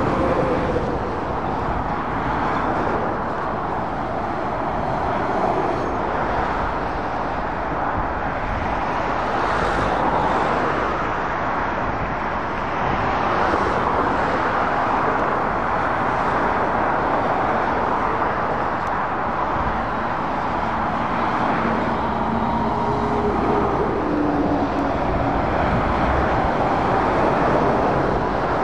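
Steady motorway traffic noise as lorries and cars pass at speed: a continuous rumble and tyre roar with the drone of heavy diesel engines.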